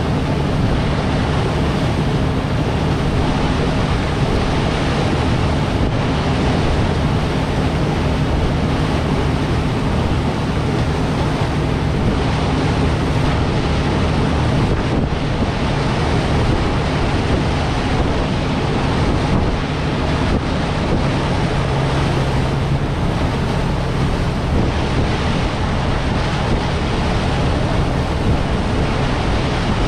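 Steady running of a Chao Phraya Express Boat under way: a low engine hum under the rush of water along the hull, with wind buffeting the microphone.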